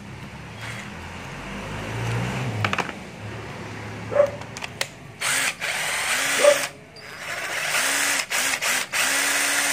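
A cordless drill-driver's motor is squeezed into short runs while the drill is tested. First come a few clicks of handling, then a run about five seconds in, then several quick on-off pulses of the trigger near the end.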